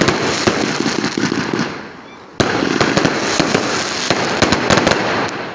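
Consumer firework cake (Pyroworx Rapture) firing, with dense crackling and many sharp pops. The first spell fades away, and a second loud volley of crackles starts suddenly just under halfway through.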